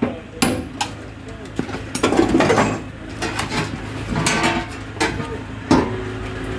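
Hammer striking metal: four ringing blows in the first second and a half, continuing steady hammering, then quieter clatter.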